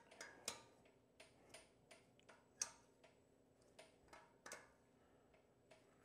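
Faint, irregular metallic clicks and taps of hand tools working the bolts on an ATV engine's head cover, about fifteen in all with one sharper tap about two and a half seconds in.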